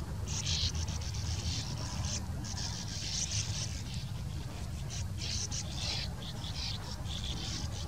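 Sand martins chattering at their nesting colony: a continuous stream of short, high twittering calls from several birds, coming in overlapping bursts over a steady low rumble.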